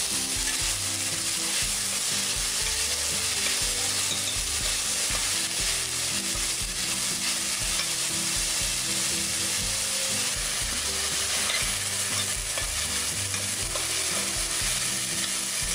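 Chopped onions and green chillies sizzling steadily in hot oil in a stainless-steel kadai while a steel spoon stirs and scrapes the pan, as the onions are browned.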